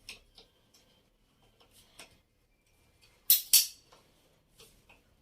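Light clicks and handling noise of the angle grinder's plastic handle housing being fitted, with two loud sharp clacks in quick succession about three seconds in.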